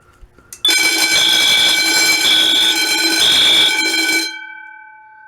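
A Wheelock 10-inch fire alarm bell rings very loud, set off by a pull station. Over it a Wheelock AS horn on low volume sounds three half-second blasts in the temporal code-3 pattern. After about three and a half seconds both stop, and the bell's tones ring on and fade away.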